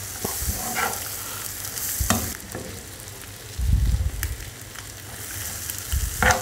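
Chopped onion, capsicum and boiled eggs sizzling in a frying pan while a spoon stirs them, with scattered scrapes and clicks of the spoon against the pan. There is a brief low rumble a little past the middle.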